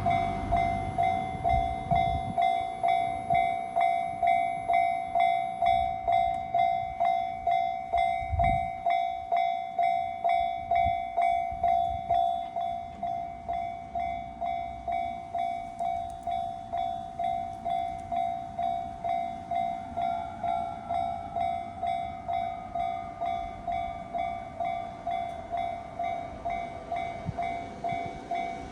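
Japanese railroad crossing warning bell ringing its steady "kan-kan" at about two strokes a second. It drops in level about twelve seconds in.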